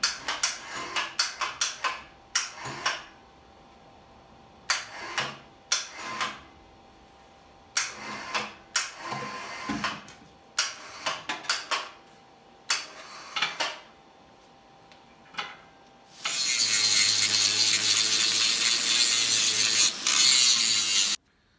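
Scattered short knocks and clanks of steel parts being handled on the workbench. Then, about three-quarters of the way in, an angle grinder runs steadily for about five seconds, grinding a steel angle bracket held in a vise; this is the loudest sound.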